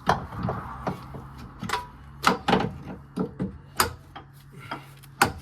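Irregular sharp knocks and clatter of tools and suspension parts being handled while a lower wishbone is fitted to the car, about a dozen hits with no steady rhythm, over a steady low hum.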